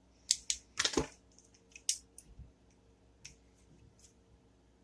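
Short sharp metallic clicks and taps from handling a cap-and-ball revolver while loading paper cartridges into its cylinder, several close together in the first second and a few scattered after.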